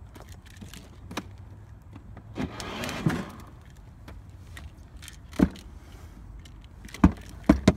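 Irregular sharp plastic knocks and clicks as a small toy car is tapped and knocked against the plastic body of a child's ride-on car. The knocks are loudest about five seconds in and come in a quick cluster near the end, with a brief scraping noise about two and a half seconds in.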